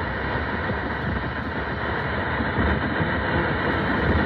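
Steady static hiss and rumble from a weather radio receiver, with no voice coming through.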